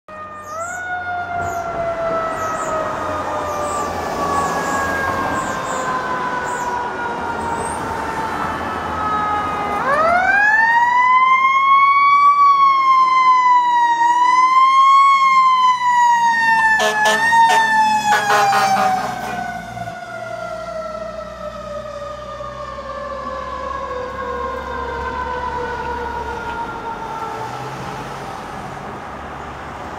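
Federal Q2B mechanical siren on a fire engine pumper: a long wail falling slowly in pitch, then spun back up to a loud rising wail that wavers at its peak. A few short sharp blips come just past the middle, and then it coasts down slowly again, over a low truck-engine rumble.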